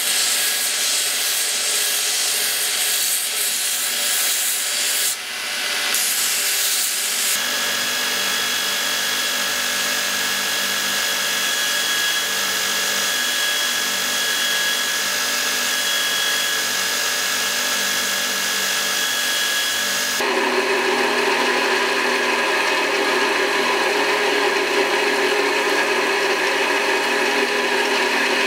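Electric belt grinder running with a steel hilt fitting pressed against the belt: a steady rasping grind over the motor's hum. The sound changes abruptly twice, about seven and about twenty seconds in, as the work moves to another belt and then to a small contact wheel.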